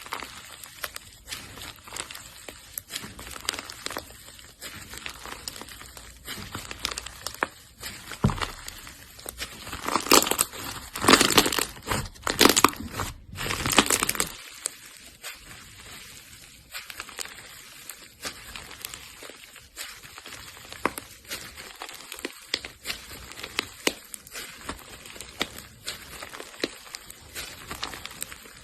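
Slime being squished and worked by hand, making many small sticky crackles and pops, denser and louder for a few seconds about ten seconds in.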